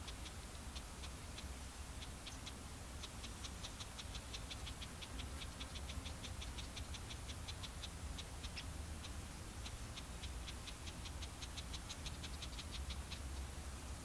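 Open-field ambience: a quick, irregular series of short, dry, high-pitched ticks, about five a second, over a low wind rumble on the microphone.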